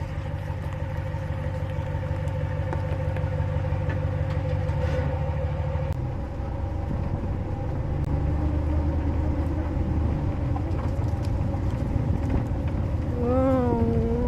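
A vehicle driving, with a steady low engine and road rumble and a steady whine above it.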